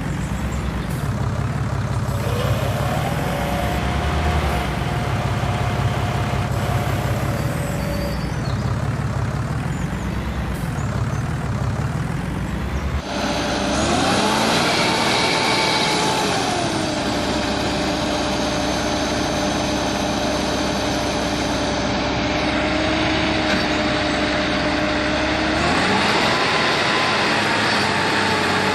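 Heavy diesel engines of tractors or a backhoe running under load, with the engine note rising and falling as they are revved. About halfway through the sound cuts abruptly to a different engine, which revs up, settles to a steady note, and revs up again near the end.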